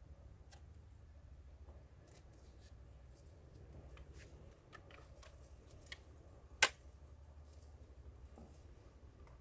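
Leg braces being handled, giving scattered faint clicks and one sharp, loud click about six and a half seconds in, over a steady low hum.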